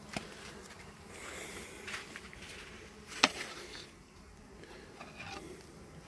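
Honeybees buzzing around the hive, with a sharp click about three seconds in and a smaller one right at the start.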